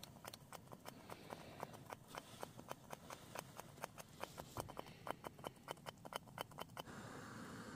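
Thick curry bubbling in a pot on a camping gas stove, popping in faint quick ticks about four a second. Near the end the ticks stop and a steady hiss takes over.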